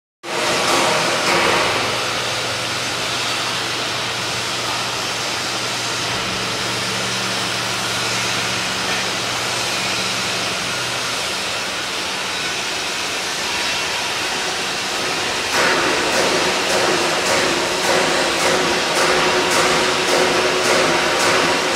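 Hydraulic lid-lift of a stainless steel high shear mixer granulator running as the lid opens: a steady mechanical whir with a low hum that drops away about halfway through. About three-quarters of the way in it gets louder and uneven, with a run of short clicks.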